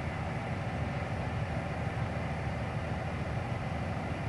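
Canadian Pacific freight train of autorack cars rolling past, a steady low rumble of wheels on rail.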